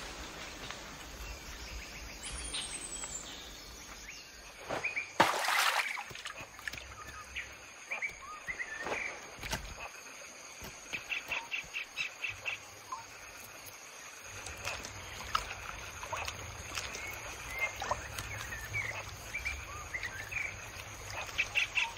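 Forest ambience of assorted bird chirps and calls, with a fast twittering trill about eleven seconds in and again near the end, over a steady high-pitched hum. A brief loud rush of noise cuts in about five seconds in.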